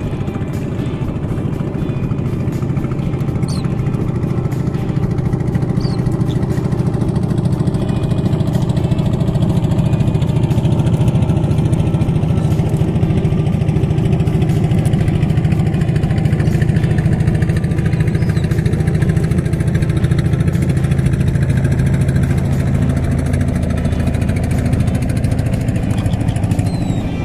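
Small fishing boat's engine running steadily, getting a little louder in the middle and easing off near the end.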